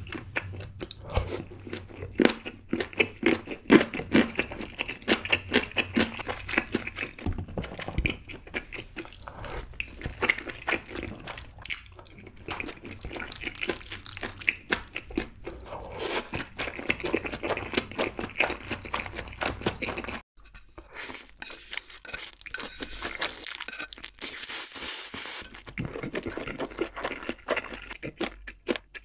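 Close-miked eating sounds: a person chewing spicy rice cakes, ramen noodles and kimbap, with many small wet, crunchy clicks of mouth and food. The sound breaks off briefly about twenty seconds in, then the chewing goes on.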